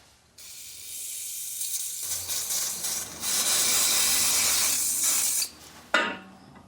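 A pressurised spray hissing steadily, growing louder after about two seconds and cutting off suddenly near the end, followed by a sharp click.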